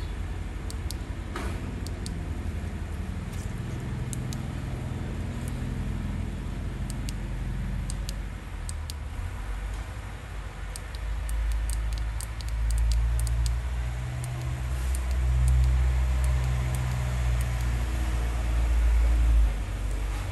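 A low rumble that swells about halfway through and drops off shortly before the end, with scattered light clicks and taps as a clear plastic LED visor and its hinged arms are handled.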